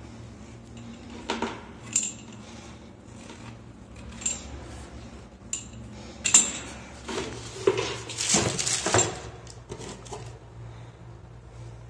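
Metal clinks and taps from a black wall mixer being handled and offered up to the brass wall connectors, single sharp clicks at first, then a busier run of clinking and handling noise about seven to nine seconds in, over a low steady hum.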